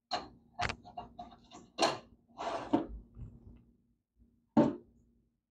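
Steel throwing knives and a small toaster oven being handled as the knives are loaded in for tempering: a string of short clanks and knocks with a longer rattle midway, and one loud knock near the end.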